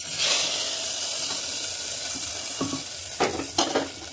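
A hot mustard-oil tempering (tadka) of cumin and dried red chilli sizzling. The sizzle starts suddenly and fades slowly, with a few short clinks of a utensil against the pan in the second half.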